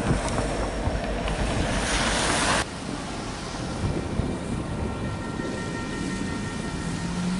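Loaded coal train with a Union Pacific diesel locomotive rolling past, a steady rumble with a loud hiss near the end of the pass. It cuts off sharply about two and a half seconds in, giving way to steady wind noise on the microphone with faint steady tones near the end.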